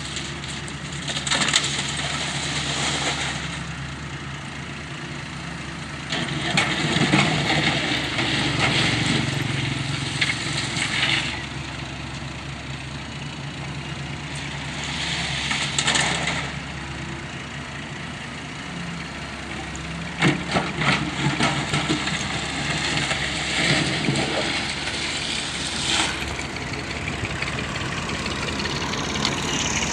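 Doosan Solar wheeled excavator's diesel engine running steadily, with several louder stretches of harsh, noisy clatter, each a few seconds long, as the machine works.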